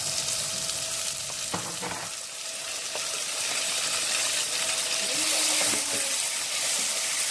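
Chopped tomatoes sizzling steadily in hot oil with fried onions in a pan, stirred with a wooden spatula, with a single knock of the spatula about a second and a half in.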